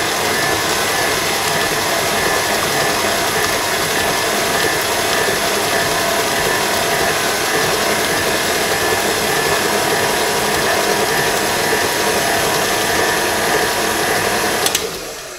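KitchenAid tilt-head stand mixer motor running steadily, its flat beater churning a runny cookie batter in the stainless steel bowl. It is switched off about a second before the end with a click, and the sound fades as the motor winds down.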